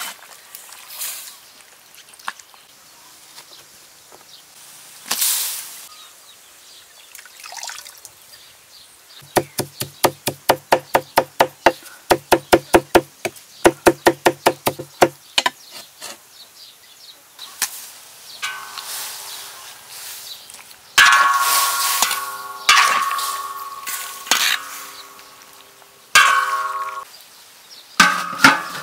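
Large knife mincing on a wooden board: quick, even chopping strokes at about five a second, in a few short runs lasting some six seconds. Later comes a clatter with long ringing tones held at several pitches.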